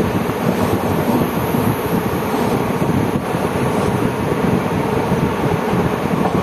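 Passenger express train running at speed, heard from on board: a steady rumble of wheels on the rails with wind noise on the microphone.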